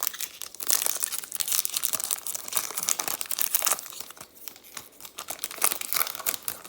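Foil trading-card pack wrapper crinkling and tearing as it is opened and handled, a dense run of crackles.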